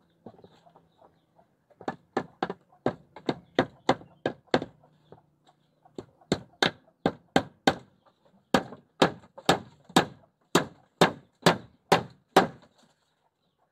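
Repeated sharp knocks or blows, two to three a second, in two runs: a short run about two seconds in, then a pause, then a longer, louder run.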